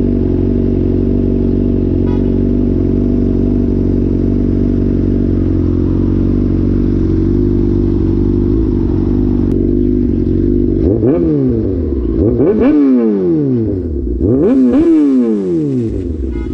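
Honda CBR600RR's inline-four engine idling steadily, then revved in several quick throttle blips, each rising and falling, over the last five seconds or so.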